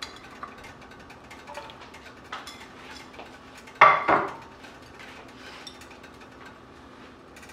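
Light clinks and knocks of vegetables and a hand or utensil against a roasting pan as carrots and small potatoes go in around a pot roast in its sauce, with one louder clatter about four seconds in.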